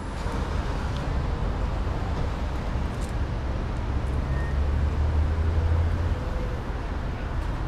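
City street traffic: a steady low rumble of passing vehicles with a general traffic hiss, growing louder for a second or two about five seconds in.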